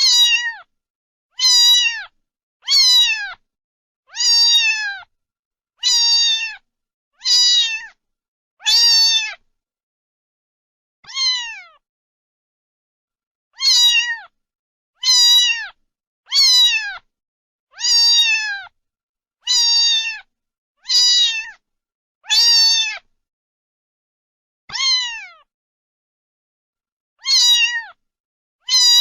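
Cat meowing over and over, about eighteen short high-pitched meows that drop in pitch at the end, a second or two apart, with a longer pause now and then.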